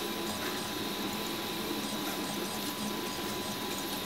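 RepRap Huxley 3D printer printing, its stepper motors whirring steadily under a thin steady tone.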